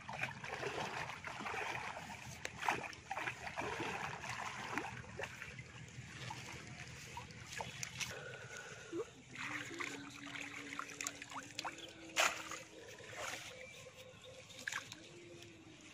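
Water sloshing and splashing as a bamboo-framed push net is worked through shallow muddy water, with trickling as water runs out of the net's mesh. One sharp splash comes late on.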